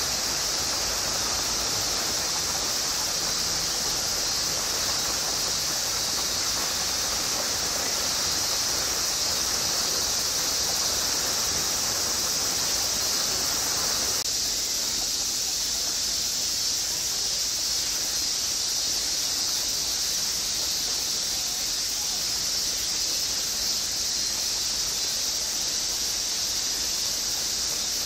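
Steady, high-pitched drone of cicadas calling in chorus, with a lower hiss underneath that drops away abruptly about halfway through.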